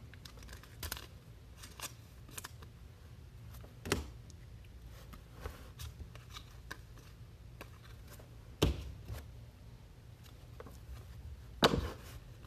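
Trading cards and packs being handled on a table: scattered light clicks and taps, with louder knocks about four, eight and a half and eleven and a half seconds in.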